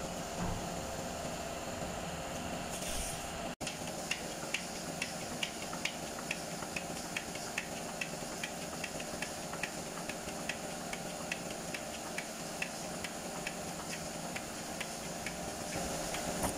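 Steady hiss of workshop background noise. It drops out briefly about three and a half seconds in, then carries an even run of light ticks, about two or three a second.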